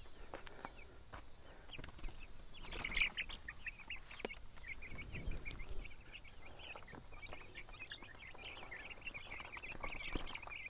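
A flock of young Cornish cross broiler chicks peeping, many short high chirps overlapping, thickening about two seconds in and going on steadily. A few knocks and rustles come as a feeder and waterer are set down in the grass among them.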